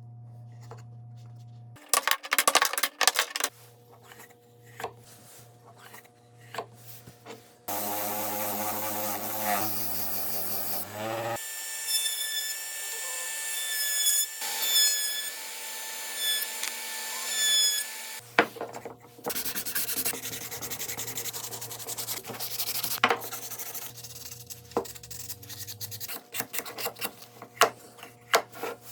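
Wood being sanded and rubbed in several separate passes, with sharp taps and clicks near the start. A steadier, machine-like stretch runs from about eight to eighteen seconds in.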